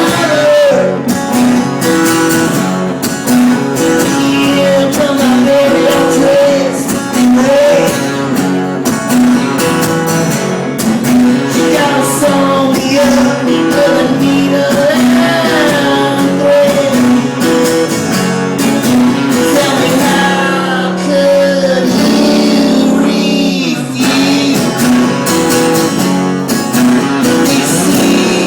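Live acoustic blues song: guitar playing with a singing voice carrying a wavering melody line over it.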